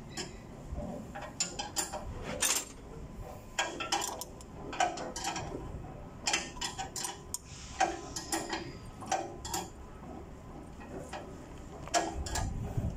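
Hand wrench clinking and clicking against metal while the exhaust pipe's bolts at the exhaust manifold are worked loose: scattered sharp metallic clicks at an uneven pace, some with a brief ring.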